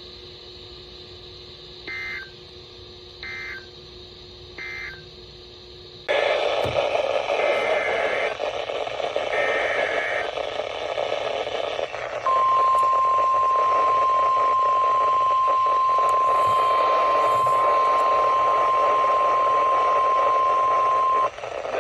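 Three short beeping data bursts of an Emergency Alert System header play over a faint steady hum. About six seconds in, the sound switches to a noisy, static-filled weather radio feed with more beeping bursts. About twelve seconds in, a loud steady single-pitch 1050 Hz NOAA Weather Radio warning alarm tone begins; it holds for about nine seconds and cuts off just before the end.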